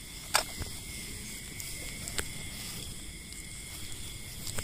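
Steady high-pitched chirring of night insects such as crickets, with a sharp click about half a second in and a lighter one about two seconds in.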